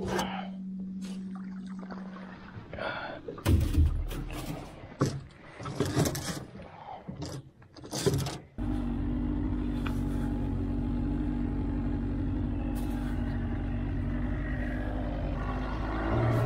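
Clunks and scrapes of gear in an aluminum fishing boat, then a small gasoline outboard motor starts about eight or nine seconds in and runs steadily. It speeds up near the end as the boat gets under way.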